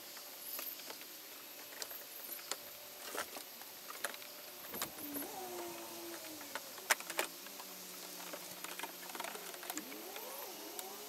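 Faint plastic clicks and rustling as the rear parcel shelf trim of an Audi A5 is worked loose and slid out by hand. The clicks are scattered, with the sharpest pair about seven seconds in.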